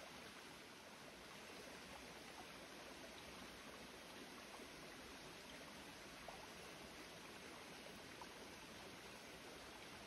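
Faint, steady rushing of a stream's flowing water.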